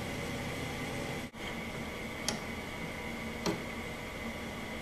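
Steady background hiss with a faint hum, broken by a brief dropout about a second in. Then come two light clicks a little over a second apart as the plane's steel lever cap is handled in a bench vise.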